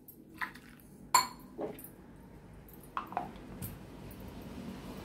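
Stainless-steel mixer-grinder jar and its lid clinking and knocking, about six short metal knocks, as the jar is handled and the lid is fitted on. The loudest knock comes a little over a second in.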